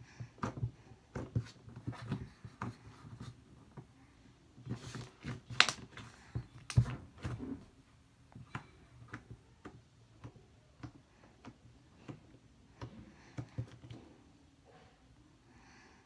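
Slime being poked and stretched by hand, giving an irregular run of small sticky clicks and pops as air bubbles in it burst, loudest about five to seven seconds in and thinning out near the end.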